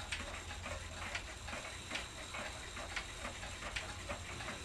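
Several mechanical clocks ticking out of step with one another: a louder tick a little under once a second among fainter, quicker ticks, over a low steady hum.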